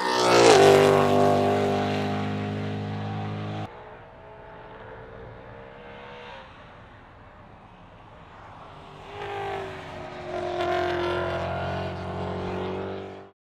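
Ford Mustang race car engine at speed: it passes close by with its pitch dropping as it goes past, then runs on steadily. After a sudden cut it sounds fainter and more distant, rises again as the car accelerates, and stops abruptly near the end.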